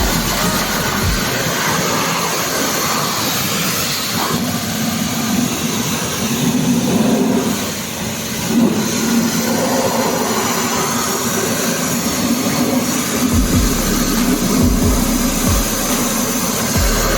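Pressure washer spraying water in a steady hiss, with the washer's pump or motor humming underneath.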